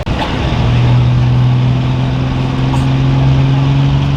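Pro stock diesel pulling truck's engine running loud at steady, held revs, an even drone that cuts in abruptly at the start.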